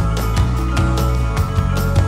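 Background music with a steady beat and sustained low notes.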